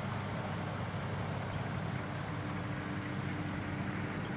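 A military patrol vehicle driving, its engine running steadily with a constant low hum.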